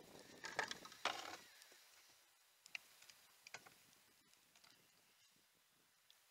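Near silence with a few faint clicks and knocks: a small cluster in the first second and a half, then sparse light ticks.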